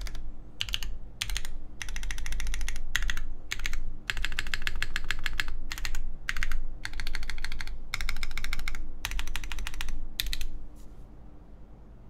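Mode Loop TKL mechanical keyboard with Obscura switches, a carbon fiber plate and GMK keycaps being typed on, in quick runs of keystrokes broken by short pauses. The typing stops near the end.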